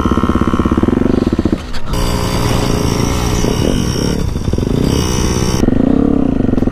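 Dirt bike engine running at low trail speed, its pitch rising and falling slightly with small throttle changes, with a short dip about two seconds in.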